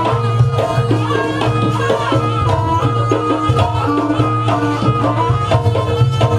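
Javanese jaranan ensemble playing dance music: a high melody that moves from note to note over hand drums and a steady low hum.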